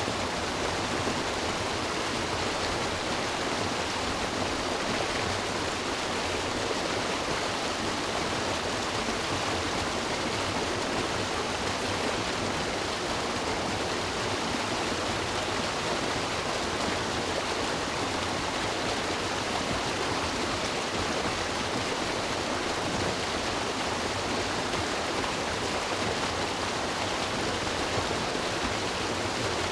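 River water flowing and rushing over rocks: a steady, unchanging rush.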